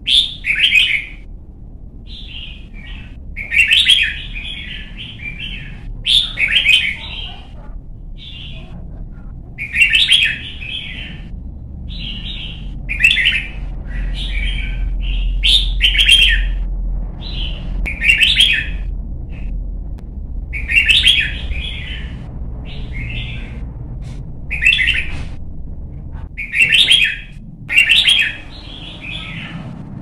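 Red-whiskered bulbul singing short, bright whistled phrases, one every second or two, over a low background rumble.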